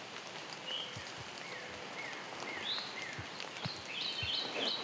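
Songbirds calling in the woods: a few short, falling whistled notes, then a quick run of high chirps near the end, over a faint steady hiss. A few soft low thumps come and go underneath.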